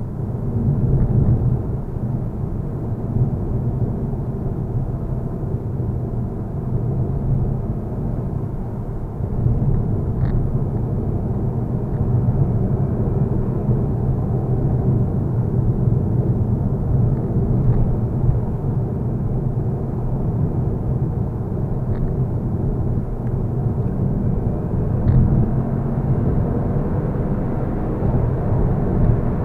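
Steady low rumble of a car driving at road speed, tyre and engine noise heard inside the cabin, with a few faint clicks.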